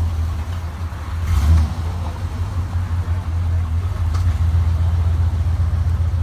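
Car engine idling with a steady deep low rumble, swelling briefly once about one and a half seconds in as it is blipped.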